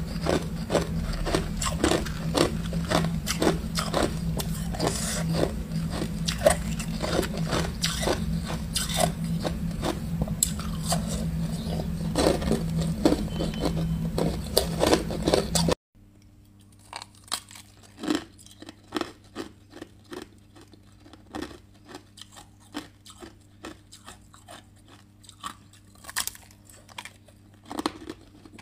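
Ice being bitten and crunched between the teeth: many sharp, crisp crunches in quick succession over a steady low hum. About sixteen seconds in, the sound drops abruptly to quieter, sparser crunching.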